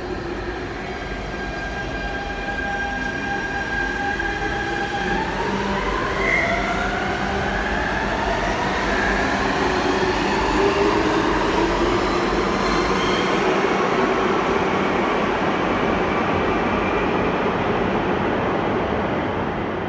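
An Istanbul M9 metro train pulling out of an underground station. Its electric drive gives a whine that rises in pitch as it accelerates, and the running noise of the wheels on the rails grows loudest as the cars pass. It begins to fade near the end as the train goes into the tunnel.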